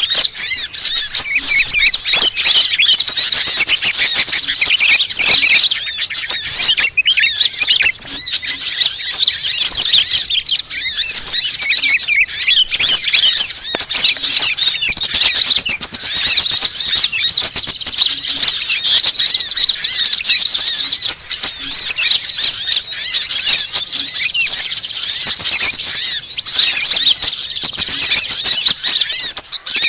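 Bird-lure recording: many small songbirds chirping and trilling at once in a dense, continuous, high-pitched mix that never pauses. It is a layered call track meant to draw wild birds in for trapping.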